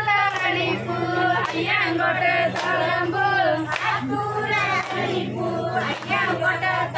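Group of voices singing a Tamil kummi folk song in chorus, with sharp hand claps about once a second keeping the beat. A steady low hum runs underneath.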